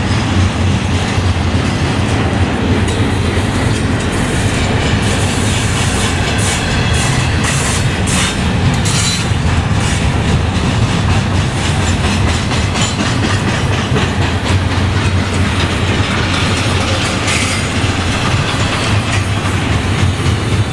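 Double-stack intermodal well cars rolling past at close range. A steady heavy rumble is overlaid with the clicking of wheels over the track, with a run of sharper clicks around the middle.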